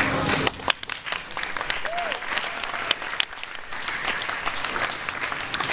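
Audience applauding: many hands clapping at an uneven pace, with voices underneath.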